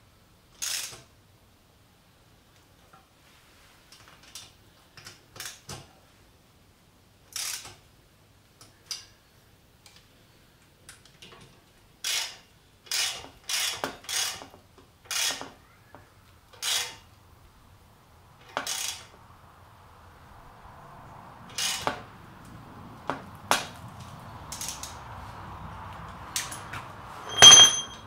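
Metal hand tools clicking and knocking at irregular intervals against the exhaust header fittings of a Honda CBR250R as they are tightened by hand. Near the end comes a single louder metallic clank that rings briefly. A faint steady background noise grows from about two-thirds of the way in.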